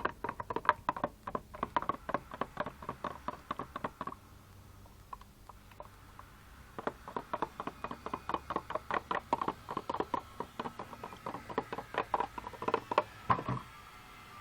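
Rapid rhythmic tapping or clicking, about five strokes a second with a slight ringing note, in two runs: one over the first four seconds and a longer one starting about seven seconds in.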